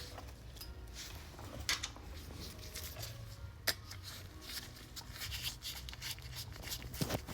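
Hand tools at work on the front brake rotor's retaining screws: light scraping and handling noise with three sharp metallic clicks, over a low steady hum.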